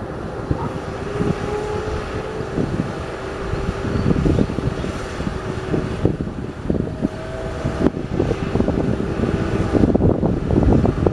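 Heavy vehicle engine running steadily, with a faint steady whine over it, and wind buffeting the microphone in uneven low gusts.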